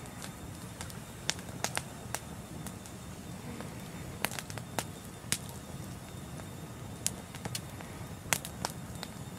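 A wood campfire burning in a fire pit, crackling with irregular sharp pops, a few a second, over a low steady rumble.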